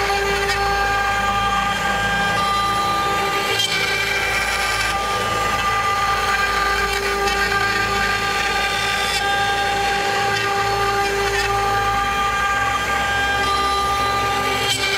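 CNC router spindle running steadily with a high, even whine as a small ball-nose cutter carves a wood relief. The machine's lower hum shifts pitch a few times as the axes change direction.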